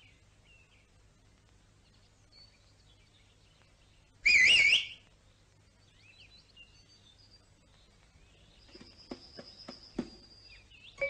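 Faint birdsong, broken about four seconds in by one short, loud warbling whistle. Near the end a thin high tone runs under a few light taps and knocks.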